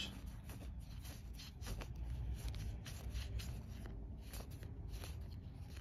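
Game cards handled in the hands: faint rustling and small clicks of card stock as cards are slid apart and sorted into piles.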